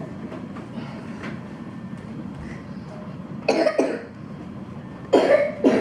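A young girl sick with flu and fever coughing in two short fits, each of two coughs, about three and a half seconds in and again near the end. The cough is chesty, with phlegm that her mother urges her to bring up.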